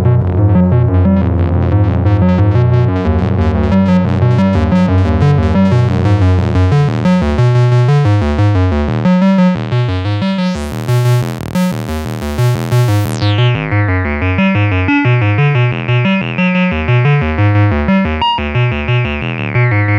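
Moog analog synthesizers (Mavis and Werkstatt-01) playing a fast pulsing sequenced pattern over a sustained low bass note. About halfway through, the filter opens into a bright, hissy sweep for a couple of seconds, then closes back down into a duller tone.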